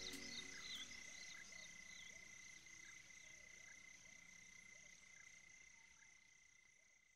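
Faint night-time nature ambience of a steady cricket-like insect drone with scattered short chirps, fading out slowly as the recording ends.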